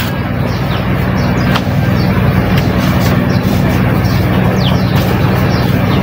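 Panasonic F-MY153 industrial ceiling fan humming as it starts up and gathers speed: a loud, steady, low hum, the noisy humming that the owner is showing.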